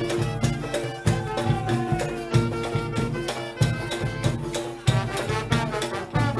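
Latin-style music with percussion, held melodic notes and a steady beat of low thumps.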